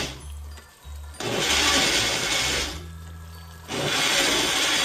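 Electric blender pulsed in short bursts, each about a second and a half, grinding fried onion and yogurt into a coarse paste, with the motor humming lower between bursts.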